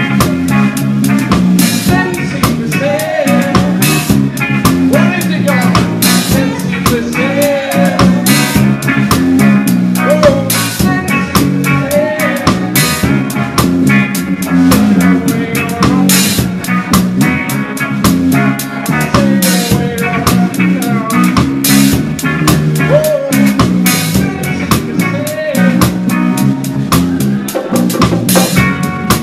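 Reggae band playing live, heard from right beside the drum kit: drums and cymbals struck close and loud, in a steady rhythm over the rest of the band.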